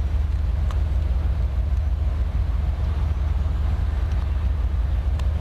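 Low, steady rumble of an approaching freight train led by a GE ES44AC diesel locomotive, moving slowly. Two faint clicks, one under a second in and one near the end.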